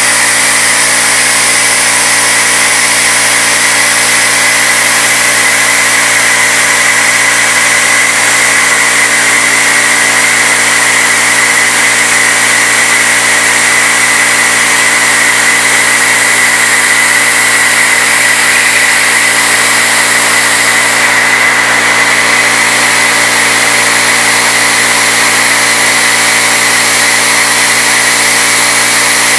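Bridgeport knee mill spindle turning a 3/8-inch end mill at 2200 RPM, cutting aluminum at a slow steady feed: a loud, even machining noise with a constant high whine.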